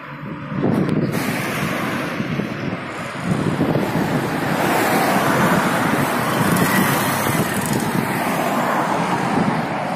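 Wind buffeting the microphone over the steady sound of road traffic, with the level rising sharply about half a second in.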